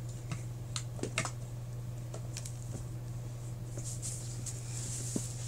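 Scattered small clicks and taps of plastic dolls and toy furniture being handled and moved by hand, over a steady low hum.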